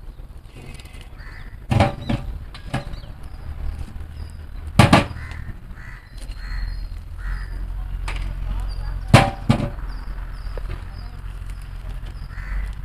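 Sharp knocks of metal cooking vessels and utensils, a handful of times, loudest about five and nine seconds in, over a low steady rumble. Crows caw now and then.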